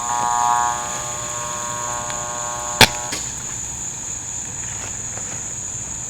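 Vacuum cleaner motor running with a steady high whine and buzz. A sharp knock comes about three seconds in.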